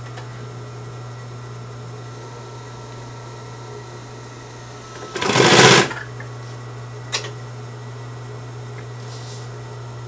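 Consew 225 industrial walking-foot sewing machine with its clutch motor humming steadily. About five seconds in there is a short, louder burst of stitching as the treadle engages the clutch, and a single click follows near seven seconds.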